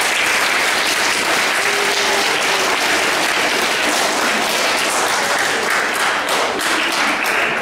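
Audience applauding: a steady, dense clapping that thins out near the end.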